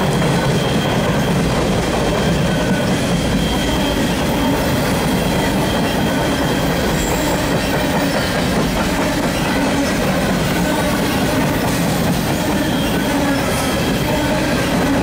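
Refrigerated boxcars of a CSX freight train rolling past on the rails: a steady, loud rumble and rattle of steel wheels and cars.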